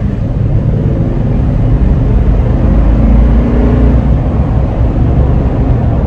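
2020 Toyota Sequoia TRD Pro's 5.7-litre V8 accelerating hard through its stock factory exhaust, heard from inside the cabin: a deep engine rumble whose pitch climbs through the middle of the run.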